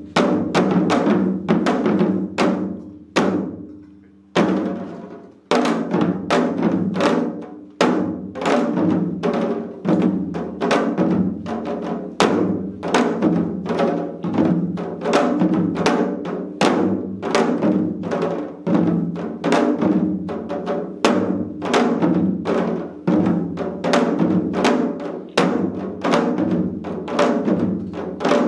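Several janggu (Korean hourglass drums) played together: sharp cracks of the thin stick on the high head mixed with deeper booming strokes on the low head. The strokes thin out to a few with short pauses about four to five seconds in, then pick up into a dense, steady driving rhythm.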